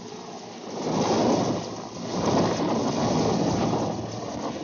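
Mil Mi-17V5 twin-turbine helicopter hovering low to land, its rotor noise and downwash wind buffeting the microphone in a loud rushing noise that swells and fades, peaking about a second in and again from about two seconds in.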